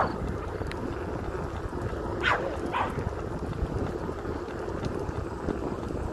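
A dog barks three short times: once right at the start and twice about half a second apart a little past two seconds in. Steady wind noise on the microphone runs underneath.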